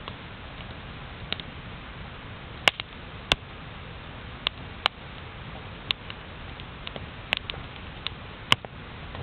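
Campfire of wood that its burner takes for birch, crackling: sharp, irregular pops and snaps a second or so apart over the steady hiss of the flames.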